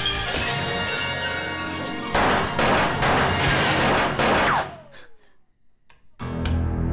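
Action-film sound effects over dramatic music: glass shattering and crashing, and a pistol shot about four seconds in. The sound then drops out to near silence for about a second and a half before the music comes back.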